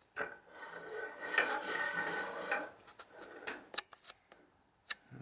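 Handling noise: a couple of seconds of rubbing and shifting, then a few sharp clicks.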